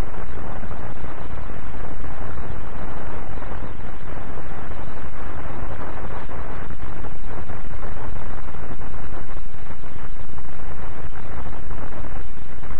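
Steady hiss and low rumble of an old optical film soundtrack, with no distinct sound of its own.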